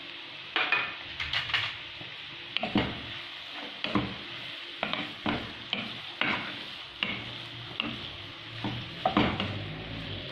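Ground meat with fried onion sizzling steadily in a nonstick frying pan while a spatula stirs and breaks it up. The spatula scrapes and knocks against the pan in irregular strokes, roughly one to two a second.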